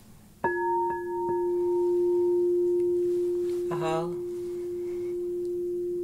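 Crystal singing bowl struck once with a mallet about half a second in, then ringing on one steady, long-sustained tone; its higher overtones die away within a couple of seconds, and two light taps follow soon after the strike.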